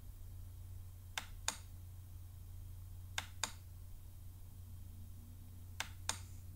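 Computer mouse button clicked three times, each click a quick press-and-release pair of ticks, over a steady low hum.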